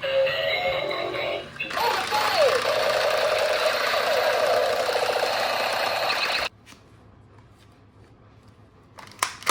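Electronic sound effect from a battery-powered toy's small speaker: a dense buzzing sound with a falling tone and fast rattling pulses, cutting off abruptly about six and a half seconds in. A couple of sharp plastic clicks follow near the end.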